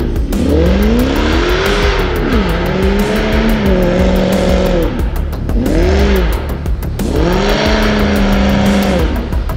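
Range Rover's supercharged 5.0 V8 through an aftermarket Guerrilla exhaust, revving up and falling back several times, holding steady revs in between, while the car drifts with its wheels spinning on snow.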